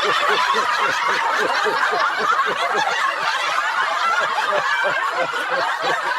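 Several people laughing together without a break, many short laughs overlapping.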